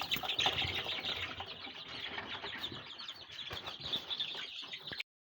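A brood of chicks peeping continuously, many overlapping high cheeps, with light knocks and rustling. The sound cuts off abruptly about five seconds in.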